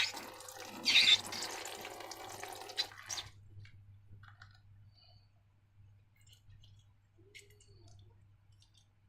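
Slime squelching wetly, with louder swells at the start and about a second in. It dies away after about three seconds to a few faint clicks.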